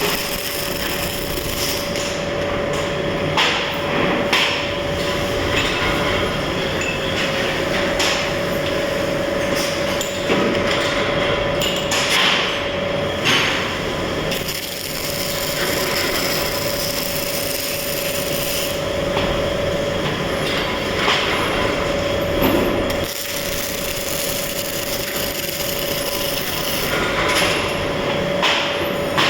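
MIG welding arc crackling steadily, with a steady hum underneath; the crackle dips briefly a few times along the way.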